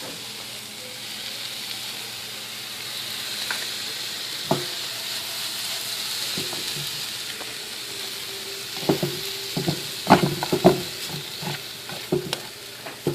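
Food sizzling in oil in a frying pan as a steady hiss. From about nine seconds in, a utensil stirs it and knocks against the pan several times.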